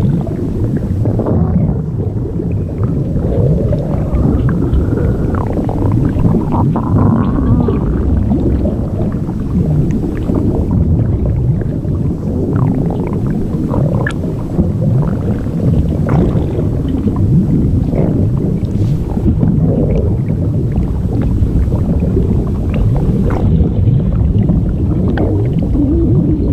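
Blueberry-inflation body-swelling sound effect: a continuous low gurgling rumble like a stomach filling with liquid, with scattered small pops and a few brief creaking groans.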